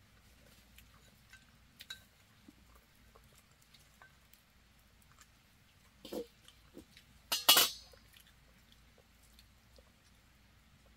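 Mostly quiet, with a few faint clicks and soft knocks, then a knock about six seconds in. About a second and a half later comes a short, loud clatter of kitchenware with a brief metallic ring.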